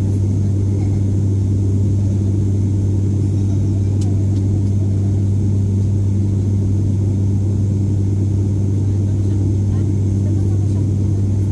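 Cabin drone of an ATR 72-600 turboprop in flight, heard from a seat next to the propeller: a loud, steady hum with a strong deep tone from the propeller blades, holding one pitch throughout.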